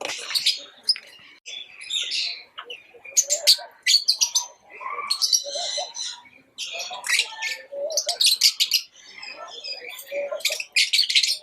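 Pet lovebirds chattering: quick runs of shrill, scratchy chirps with short pauses between them.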